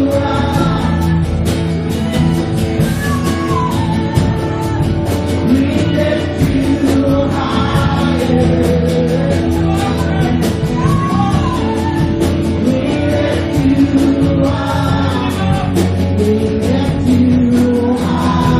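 Live worship band music with guitar, held chords and a sung melody.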